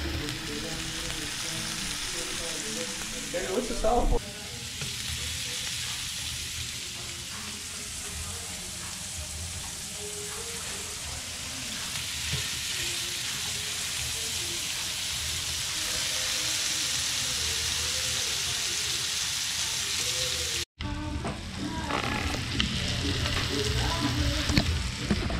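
Fish fillets sizzling steadily in hot butter in a skillet, with a short louder noise about four seconds in.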